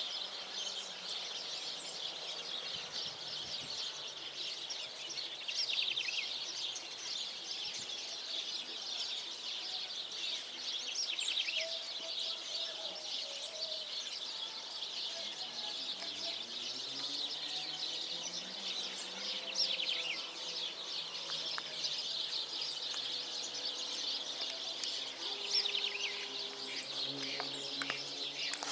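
Outdoor ambience of dense, continuous high-pitched chirping. From about halfway, a faint low drone rises and falls in pitch.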